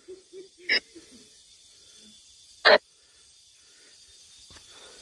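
Spirit box sweeping through radio frequencies: a steady electronic hiss broken by short, chopped bursts of static, about a second in and again near three seconds in, with faint warbling fragments early on.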